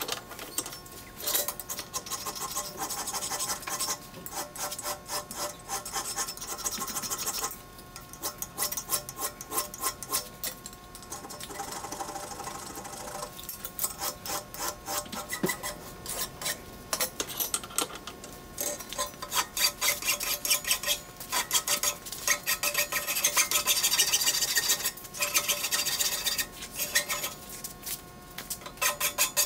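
A hand file rasping back and forth across a beryllium-copper ball peen hammer head clamped in a vise. The strokes come in quick runs with short pauses between them.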